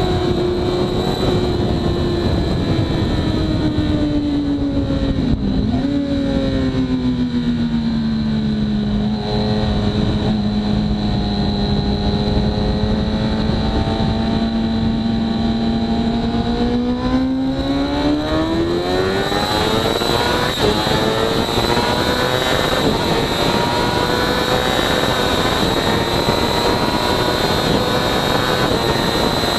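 2013 Kawasaki ZX-6R inline-four running through a Hindle full exhaust, heard onboard. The note falls as the bike slows into a corner, with a brief blip about five seconds in, and holds low through the turn. It then climbs as the throttle opens hard and stays high at speed on the straight, over a steady wind rush.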